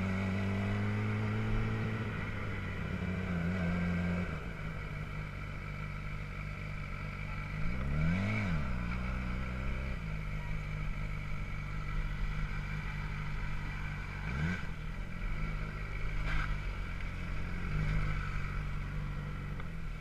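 Sport motorcycle engine running at low speed, steady for the first few seconds. Its pitch rises and falls in a short rev about eight seconds in, with another brief rev a little after the middle.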